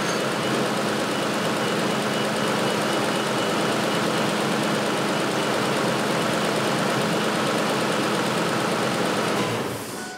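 Pickup truck engine idling steadily, then shut off about nine and a half seconds in, the sound dying away quickly.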